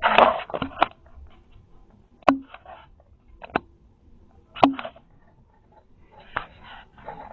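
A short rustle, then four sharp clicks and knocks spaced a second or two apart: handling noises, with no clear source.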